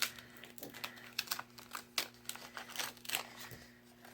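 Crinkling and crackling of cardstock and vinyl craft pieces being handled, a quick irregular series of sharp rustles.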